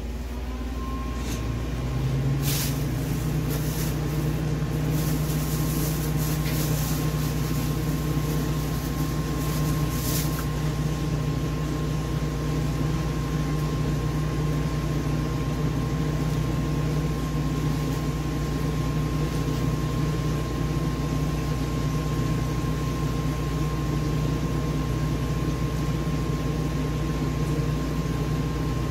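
A machine starting and then running with a steady hum, a constant high whine over a low drone, reaching full level within about two seconds. A few faint clicks come in the first ten seconds.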